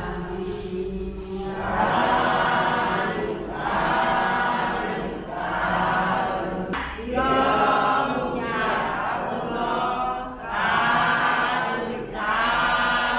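Many voices chanting together in unison, in repeated phrases about one and a half to two seconds long with brief pauses between them: a group prayer or blessing recitation.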